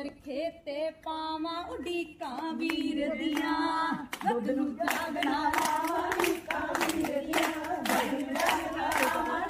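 Women singing a Punjabi folk song for gidda dancing. A single voice sings at first, then a group joins in about five seconds in, along with steady, rhythmic hand clapping.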